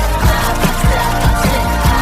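Recorded pop music with a fast, steady drum beat at about four hits a second over a held bass line, with no lead vocal line heard.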